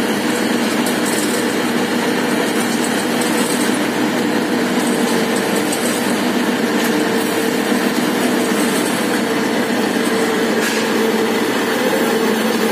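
Mini dal mill running steadily: an even mechanical drone with a few held hum tones and a constant rushing noise over it.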